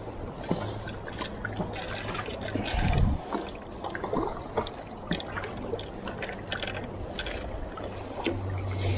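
Water lapping and splashing against a rocky shoreline, with many irregular small splashes and clicks and one heavier low thud about three seconds in.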